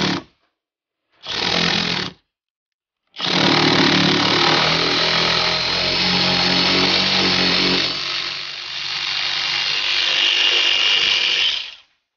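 Ratchet wrench on a long extension turning the floor bolt of a Holden Captiva seat rail: two short bursts, then a long continuous run that changes character about two-thirds of the way through.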